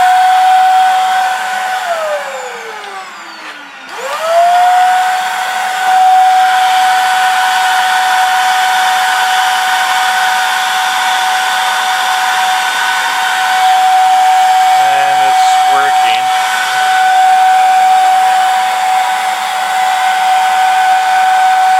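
Hoover vacuum cleaner motor running with a steady high whine; about two seconds in it winds down with a falling pitch, then spins up again about two seconds later and keeps running. The owner suspects a loose connection in the vacuum's torn power cord.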